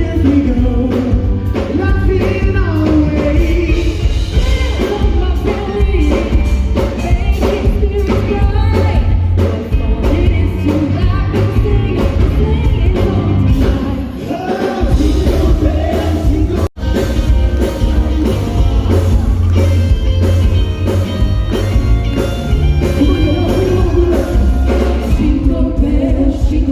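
Voices singing over band accompaniment. The sound cuts out for an instant about 17 seconds in.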